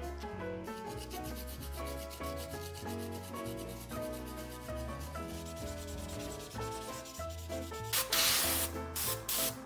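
Sandpaper rubbing over a cured resin 3D print in quick, short strokes, smoothing a rough surface left by printing with too few supports. Near the end a louder hiss cuts in twice.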